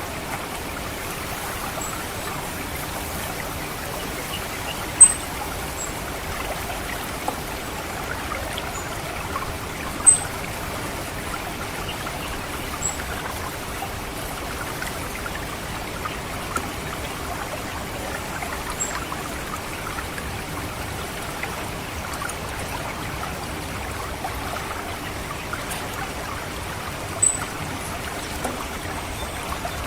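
Orange-headed thrush giving single short, high 'cit' call notes every few seconds, two of them loud, over steady trickling water in a rice paddy.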